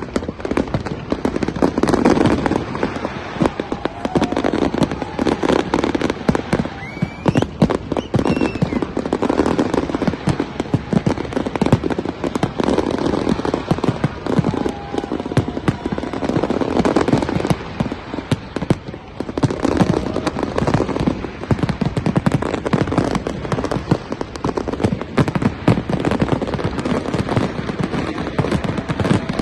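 A New Year's fireworks display: a dense, continuous barrage of bangs and crackling bursts that swells and eases every few seconds, with a brief rising whistle about seven seconds in.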